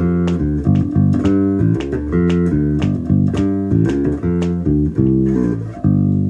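Harley Benton B-450 electric bass played solo, a run of plucked notes with a bright, aggressive tone: bass cut, low and high mids boosted, just enough treble for some zing.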